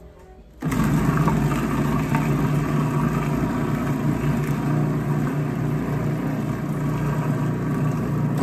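Cuisinart 12-cup food processor's motor running steadily as its blade blends blocks of cream cheese. It switches on suddenly just over half a second in and cuts off abruptly at the end.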